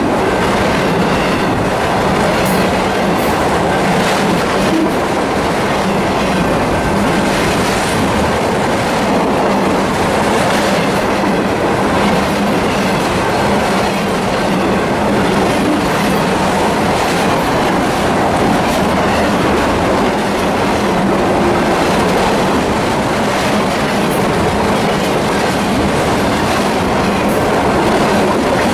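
Autorack cars of a CSX freight train rolling past: a steady rumble of steel wheels on rail with occasional clicks.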